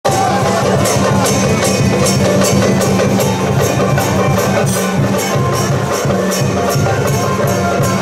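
Traditional temple-procession percussion music: sharp metallic strikes in a steady beat, about three a second, over drums and a steady low tone.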